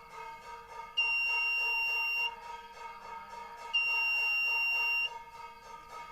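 Buzzer of a homemade LDR and BC547-transistor laser security alarm sounding two long, shrill, steady beeps, each about a second and a quarter, with a pause of about a second and a half between them. Background music plays underneath.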